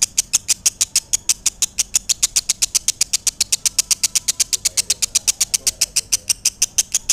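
Lovebird singing a long, unbroken ngekek trill: a rapid series of high-pitched chirps at about eight a second, kept up evenly without a pause.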